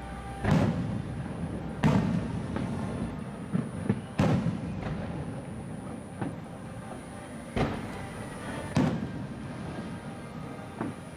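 Aerial fireworks shells bursting in a display: five loud booms spaced one to three seconds apart, each trailing off in an echo, with smaller pops between them.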